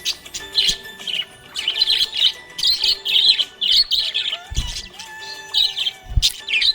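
Small pet parrots chirping in a rapid, busy run of short, high chirps, several a second, with two brief low thumps near the end.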